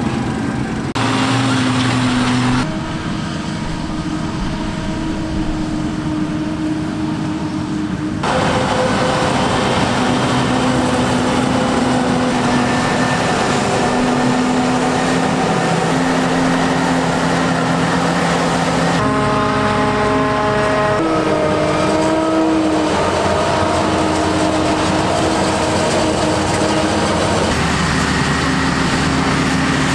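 John Deere 9800i self-propelled forage harvester, with its Liebherr V12 engine, harvesting maize alongside tractors pulling silage wagons: heavy engines and machinery running steadily, with the engine tones changing suddenly several times.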